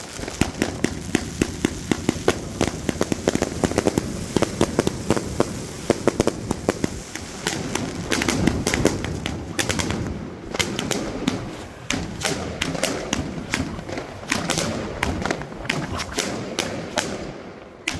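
Funke Fireball 200 fireworks going off overhead: a dense, rapid run of sharp pops and crackling from the bursting stars, many reports a second, with heavier thuds among them. The volley dies down briefly near the end.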